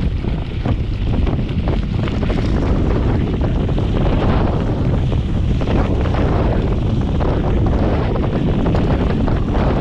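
Wind buffeting the microphone of a Focus SAM mountain bike speeding down a trail, over the rumble of knobby tyres on dirt and a steady run of quick clicks and rattles from the bike.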